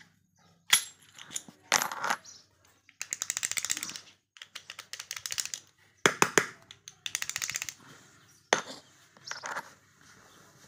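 Steel seven-lever push-button padlock being handled: sharp metallic clicks and clinks, with two bursts of fast rattling clicks of about a second each, one about three seconds in and one about seven seconds in.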